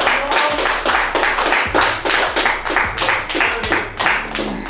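Background music with a fast beat of sharp, clap-like hits several times a second over a steady bass.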